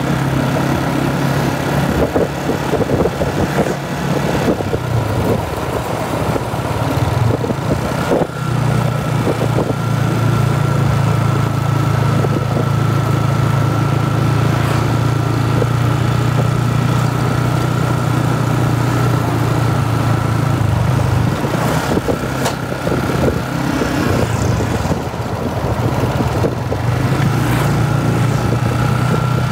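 Motorcycle engine running at a steady riding pace, heard from the rider's seat, with road and wind noise; the engine note eases off briefly a few times.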